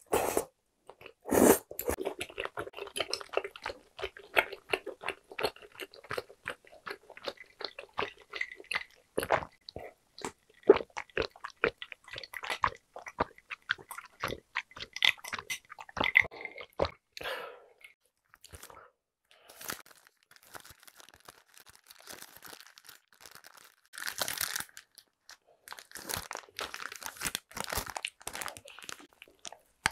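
Close-miked mouth sounds of a person chewing spicy tteokbokki, with rapid wet clicks and smacks. The chewing thins out after about 17 s, and near the end a rice burger's paper wrapper rustles as it is opened.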